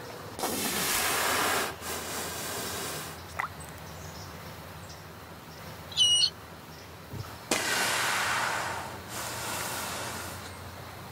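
West Indian manatee calling underwater: a short, high squeak with a clear pitch about six seconds in, and a fainter rising chirp a few seconds earlier. Around them are two longer stretches of hissing, rushing water noise, near the start and about two thirds through.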